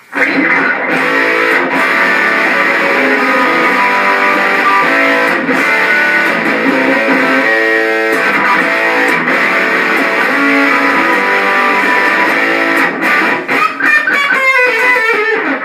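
Alvarez Dana II electric guitar with Triforce pickups, pickup selector in position 1, played through a vintage Boss DS-1 distortion pedal turned all the way up into a small Peavey Backstage amp: loud, heavily distorted chords and riffs. Near the end the notes ring out and slide down in pitch.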